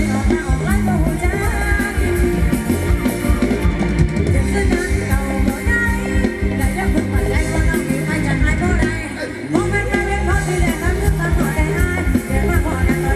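Live band playing Thai ramwong dance music with a singer, loud and continuous, with a brief drop about nine seconds in.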